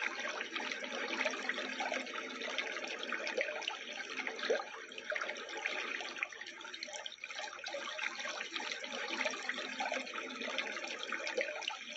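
Recorded sound of flowing, trickling water played back through a small nature-sound speaker, a steady even wash without pauses.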